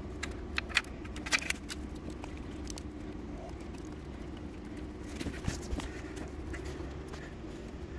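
Irregular light metallic clicks and clinks as a bolt is backed out of the engine with hand tools, over a steady low hum.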